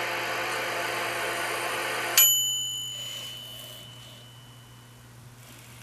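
Oven cooking sound effect played through a RoboHoN robot's small speaker: a steady hum that stops about two seconds in with a single high, bell-like ding ringing out, the signal that the cooking is done.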